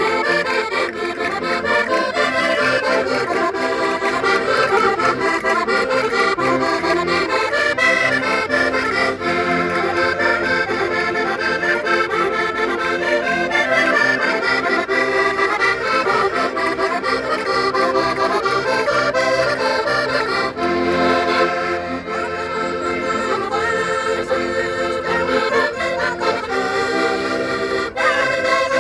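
Concertinas (Minho-style diatonic button accordions) playing a traditional folk tune, with no singing.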